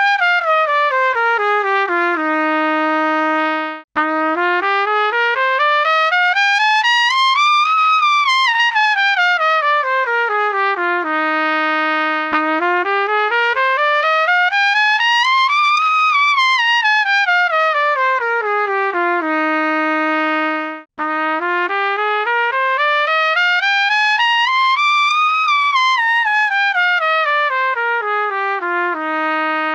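LOTUS Universal Max trumpet playing the same stepwise scale run three times, rising about two octaves and falling back to a held low note each time, with brief breaks between passes. The passes are played with different tuning slide and valve cap combinations: bronze or yellow brass slide, light or heavy top caps.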